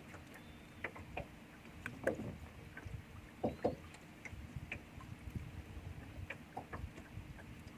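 Small fishing boat sitting on the water: quiet lapping against the hull with scattered light knocks and clicks, over a faint steady hum.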